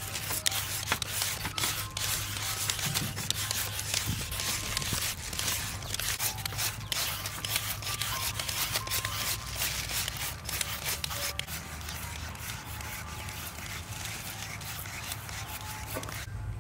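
Handheld julienne peelers rasping through raw peeled sweet potatoes, several at once, in quick, irregular repeated strokes.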